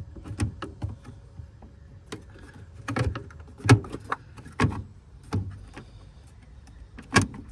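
Hard plastic clicks and knocks, irregular, with two louder ones in the middle and near the end, as a VW Touareg headlamp's plastic rear cover is worked into place and its clips are pushed home.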